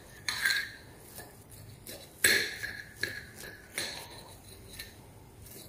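Table knife cutting through an omelette and scraping and clinking against a ceramic plate: a few sharp clinks, the loudest about two seconds in.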